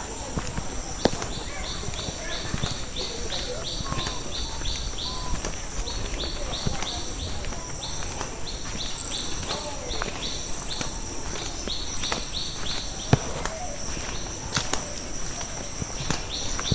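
Insects chirping in runs of short high notes, about two to three a second, with gaps between runs, over a steady high insect drone. Footsteps on a dirt path tap now and then.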